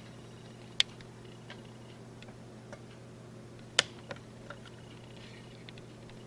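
A few scattered sharp clicks or taps over a faint steady hum. Two loud ones fall about a second in and near the middle, with fainter ticks between and after.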